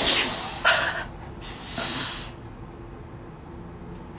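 Three breathy snorts of stifled laughter through the nose, the first the loudest.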